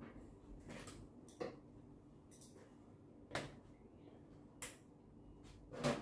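Irregular light clicks and knocks of parts and tools being handled during a microwave repair, about half a dozen, the loudest near the end.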